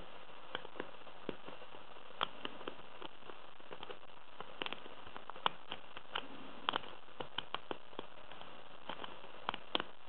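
Lock pick and tension wrench working a brass pin-tumbler lock cylinder: small irregular clicks and ticks as the pick lifts and sets pins, a few of them sharper, over a steady hiss.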